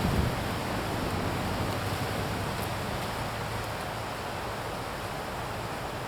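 Steady outdoor background hiss, with a brief low buffet of wind on the microphone at the very start.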